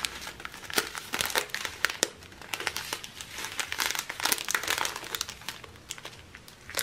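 Small plastic zip-lock bags of diamond painting drills crinkling as they are handled, in irregular crackles that thin out near the end.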